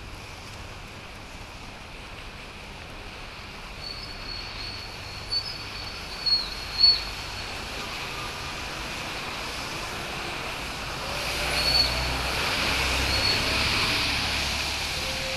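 Traffic on a flooded road: a steady wash of vehicle noise that swells about eleven seconds in as a vehicle comes closer. Between about four and seven seconds a thin high squeal sounds, loudest in three short spikes.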